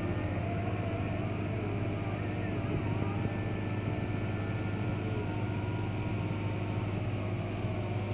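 Boat engine running steadily: a low, even drone.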